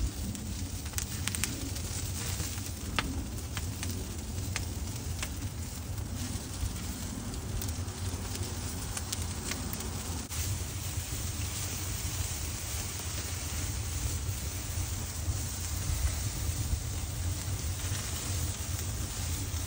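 Open fire crackling under a Santa Maria grill's grate, with frequent sharp pops in the first half, and pork ribs sizzling over it as an even, rain-like hiss. A steady low rumble lies underneath.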